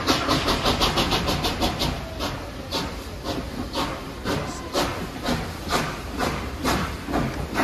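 Victorian Railways R class steam locomotive R707 pulling away with its train: sharp exhaust chuffs over a steam hiss. The chuffs come quickly, about five a second, for the first two seconds, then settle to about two a second.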